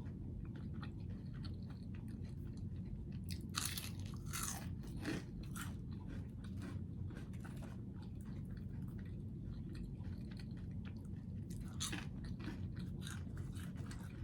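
A person chewing and biting crisp food close to the microphone, with a run of short crackly crunches and louder bites about four seconds in and again near twelve seconds.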